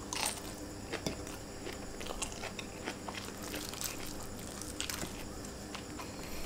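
Close-miked chewing of a mouthful of food, with scattered short crunches and wet mouth clicks.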